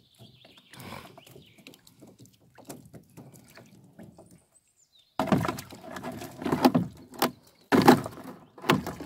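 Wire-mesh fish trap being handled in a small boat: light knocks and rattles at first, then from about five seconds in a much louder run of dense clattering and knocking.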